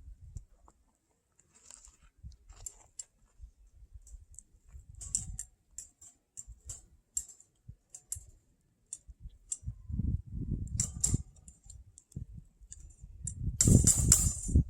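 Open wood fire crackling, with irregular sharp pops and snaps, and a louder burst of noise about a second before the end.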